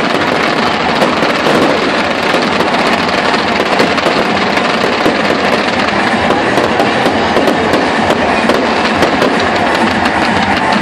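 Stadium fireworks and pyrotechnic fountains crackling continuously, a dense stream of rapid pops and sizzle with no pause.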